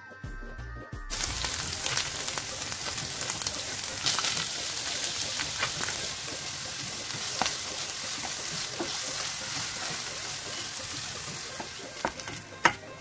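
Chopped onions with ginger-garlic sizzling in hot oil in a frying pan as they are stir-fried. A few sharp clicks of the stirring utensil against the pan, the loudest near the end.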